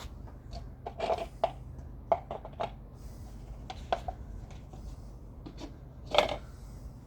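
Scattered light clicks, taps and rubbing of small parts being handled while the outboard's engine oil level is checked, with a louder knock about six seconds in. A faint steady hum lies underneath.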